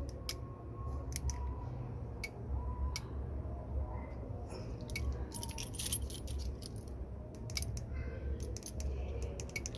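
A car key and keyring jangling and clicking as they are handled at the ignition, in scattered light clicks with a denser run about five to six seconds in, over a low steady hum.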